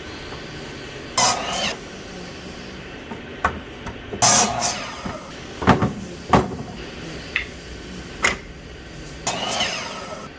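Workshop handling noises: a few sharp knocks and clatters and three short scraping or sliding sounds, over a steady low hum.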